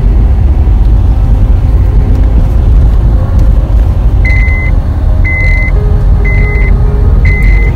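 Steady low rumble of a car on the move. About halfway through, a short electronic beep starts repeating about once a second.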